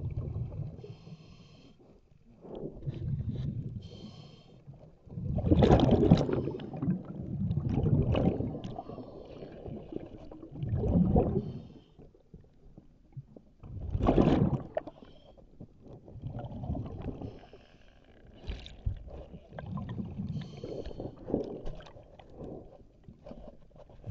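A diver breathing underwater through a regulator: repeated hissing inhales and bubbling exhales, one breath every few seconds.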